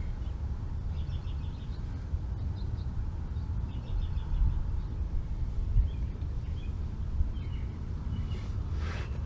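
Small birds chirping in short, repeated high trills, over a steady low rumble.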